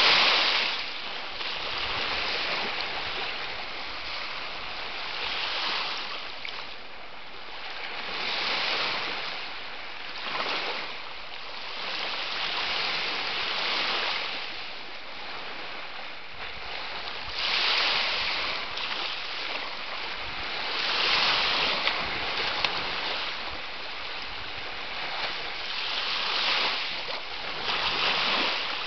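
Sea waves washing in, the rushing noise swelling and falling back every few seconds.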